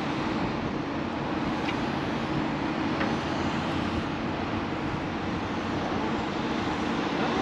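A steady engine drone with a low hum that holds an even level throughout.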